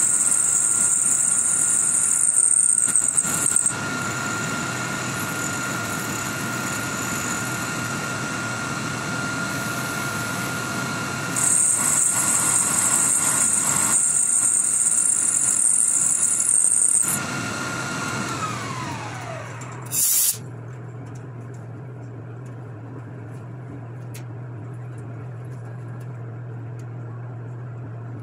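Milling machine spindle running with a steady whine while a small end mill cuts steel on a Remington 700 receiver, a loud high-pitched cutting hiss coming in for the first few seconds and again from about 11 to 17 seconds in. About 17 seconds in the spindle is switched off and its whine falls in pitch as it winds down. A short burst of noise follows near 20 seconds, then a low steady hum.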